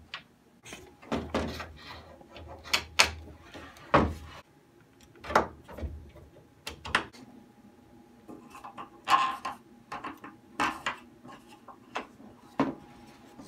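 Irregular wooden knocks and clunks, a dozen or so, with some scraping, as wooden sauna wall panels and a wood-framed infrared heater panel are handled and fitted during assembly.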